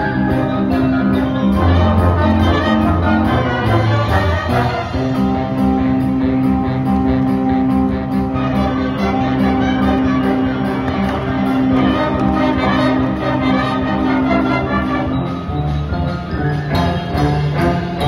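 Ensemble music with mallet percussion and brass, playing continuously for a color guard routine.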